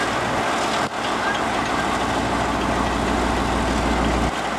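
EMD GR12 diesel-electric locomotive's 12-cylinder 567 two-stroke engine running steadily close by, a continuous deep rumble that dips briefly about a second in.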